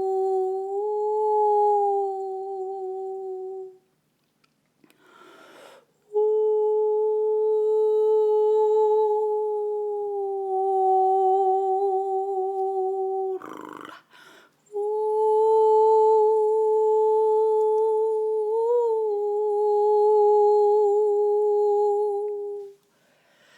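A woman humming three long held notes at a steady mid pitch, each several seconds long with a slight waver, and breaths taken between them.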